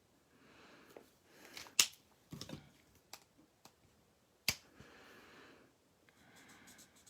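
Sharp clicks of marker caps being pulled off and snapped back on while switching markers, two of them much louder than the rest, with soft handling and rubbing sounds between.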